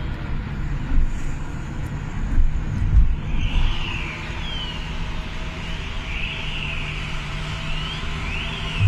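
Road and engine noise heard inside a car at motorway speed: a steady low rumble with a few thumps in the first three seconds. About three and a half seconds in, as the car enters a road tunnel, a higher hiss joins the rumble and sweeps up and down in pitch.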